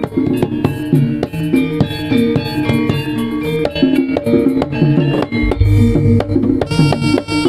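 Live jaranan band music: drums and pitched percussion playing a fast, steady rhythm, with a deep low boom coming in a little past halfway.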